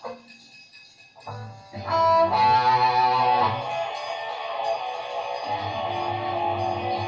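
Guitar music that fades in about a second in and comes in fully about two seconds in, then plays on steadily.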